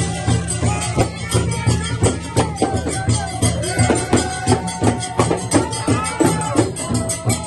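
Traditional Yoruba drumming: fast, dense percussion strokes, with drum notes that bend downward in pitch.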